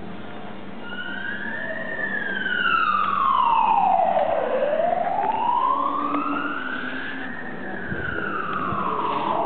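Emergency vehicle siren wailing, its pitch slowly rising and falling, about one full cycle every five to six seconds. It swells in loudness over the first few seconds.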